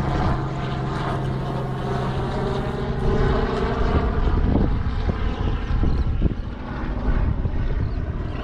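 A distant engine drones steadily under broad rushing noise, with a few sharp knocks about four and a half and six seconds in.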